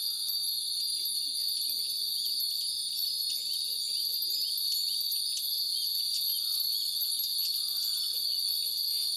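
A steady chorus of insects droning high and loud, with Japanese wind bells (fūrin) tinkling here and there.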